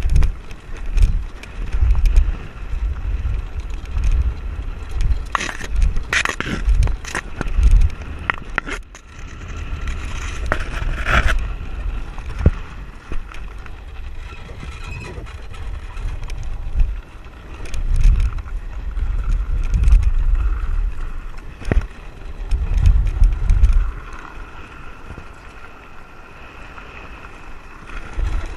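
Land yacht sailing over sandy ground, heard from a camera fixed to its frame: a loud, uneven low rumble with wind on the microphone, broken by frequent rattles and knocks from the frame and wheels.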